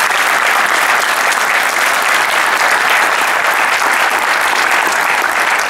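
A large audience applauding, a dense steady clatter of many hands clapping.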